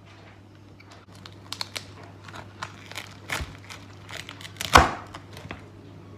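Irregular crinkling and crackling, a string of short sharp cracks with the loudest about five seconds in.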